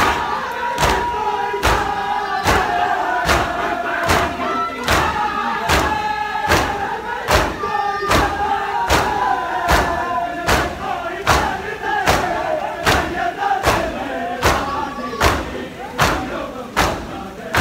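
A large crowd of mourners performing matam: hands striking bare chests in unison, a little more often than once a second, under a chanted lament sung by many voices.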